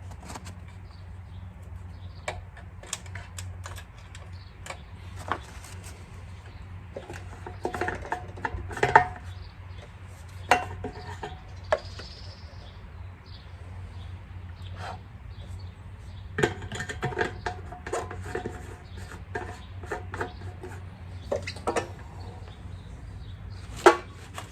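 Hand tools and small metal engine parts clinking and clattering on a workbench in irregular knocks and taps, with a couple of sharper knocks about nine seconds in and near the end, over a steady low hum.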